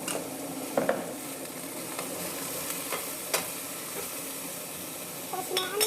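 Vegetables sizzling in a pan while being stirred, with a utensil clicking against the pan a few times.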